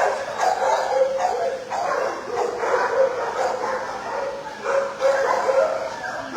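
Many dogs barking and yipping at once in the shelter kennels, a continuous din of overlapping barks.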